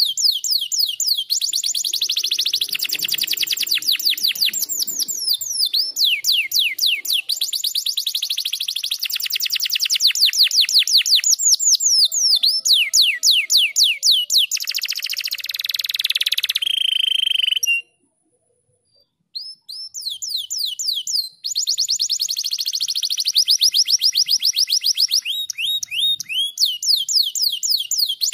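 Domestic canary singing: long, fast rolling trills of rapidly repeated high notes and quick falling sweeps, with a brief break past the middle before the song resumes.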